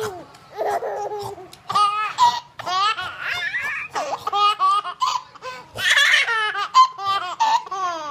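A baby laughing loudly in a quick string of short, high-pitched laughs that rise and fall in pitch.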